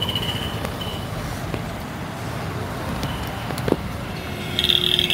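Street traffic ambience: vehicles running, with a steady low rumble. A sharp click comes a little before four seconds in, and a loud high-pitched tone starts near the end.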